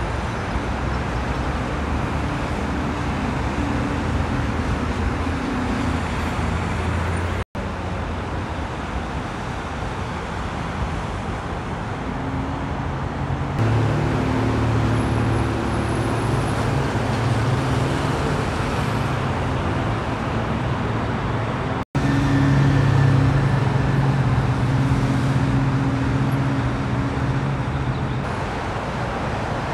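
Steady noise of dense multi-lane freeway traffic, with the low engine drone of heavy trucks passing below that swells about halfway through and again about three quarters of the way in. The sound drops out for an instant twice.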